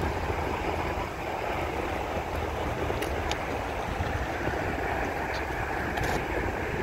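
Steady outdoor noise of wind rumbling on the microphone and water lapping at the shore, with a few faint high ticks.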